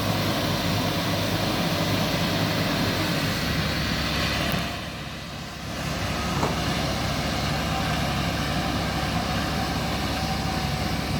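Heavy diesel engines of a bulldozer and a lorry running hard under load as the dozer pushes the lorry up a sandy slope. The noise eases off briefly about five seconds in, then comes back to the same steady level.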